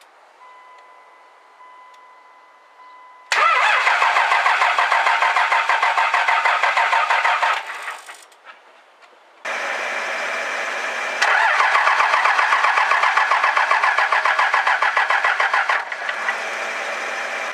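Starter cranking the 2001 Dodge Ram 3500's 5.9 L Cummins turbodiesel in two fast, even bursts of about four seconds each with a short pause between, the engine not catching. The owner takes the no-start for the injector pump having lost prime. A steady beep sounds for about three seconds before the first crank.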